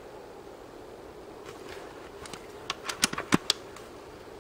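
Airsoft sniper rifle's bolt being worked to chamber the next BB: a quick run of sharp clicks and clacks about three seconds in. Steady wind noise lies under it.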